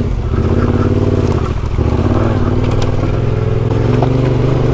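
Yamaha Ténéré 700's parallel-twin engine running steadily.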